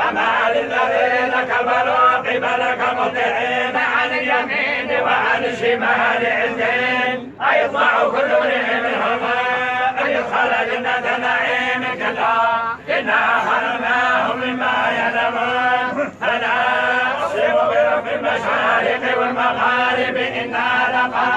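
A group of men reciting the Quran together in unison, a continuous chanted recitation with three short breaks.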